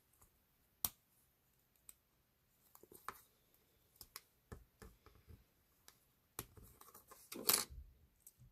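Scattered small clicks and taps of tiny parts being handled as a new axle and wheels are fitted into a 1/64-scale diecast truck's base, with the loudest cluster of clicks a little after seven seconds.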